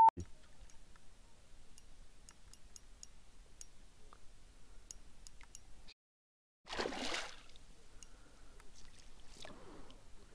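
Faint water lapping and dripping around a small inflatable boat while a hooked carp swirls near the surface, with a brief louder splash of water about seven seconds in.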